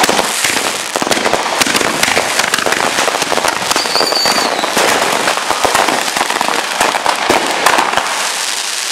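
Fireworks going off in a dense, continuous rapid crackle of many small bangs, with a brief high whistle about four seconds in.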